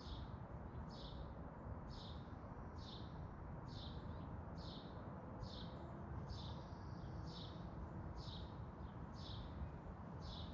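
A small bird repeating a short, high chirp about once a second, over a steady low background rumble.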